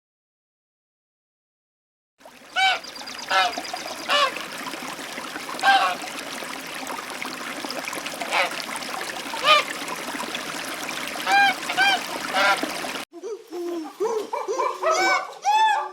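Geese honking, about a dozen separate calls over a steady noise of splashing, trickling water. The water cuts off about two thirds of the way through, and different, busier bird calls follow.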